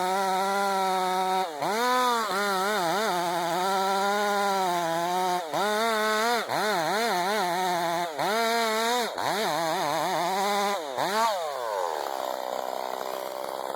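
Two-stroke chainsaw running at full throttle while cutting into a tree, its high engine note repeatedly dipping under load and revving back up. Near the end the throttle is released and the pitch falls away to a quieter running.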